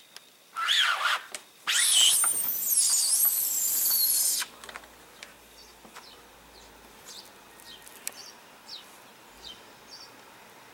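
Cats' territorial yowling in a standoff: a short wavering yowl about half a second in, then a louder, longer screaming yowl of about two and a half seconds. Faint bird chirps follow.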